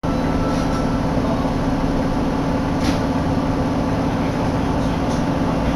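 Steady low hum and rumble inside an Osaka Metro Sennichimae Line subway car, with a few faint ticks.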